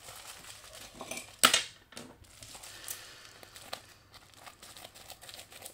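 Plastic bubble mailer crinkling as it is handled and cut open along one edge with scissors, with scattered crackles and one sharp, loud crackle about a second and a half in.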